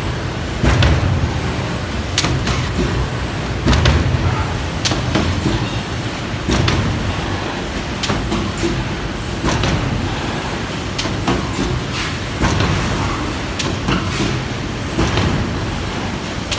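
Automatic waste stripping machine for die-cut sheets running, with a steady low rumble and sharp mechanical clacks and knocks recurring about every one to two seconds.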